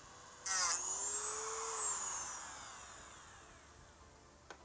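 Dremel rotary tool with a cut-off wheel, cutting plastic trim. A high whine starts suddenly about half a second in, rises briefly, then winds down and fades over the next two to three seconds.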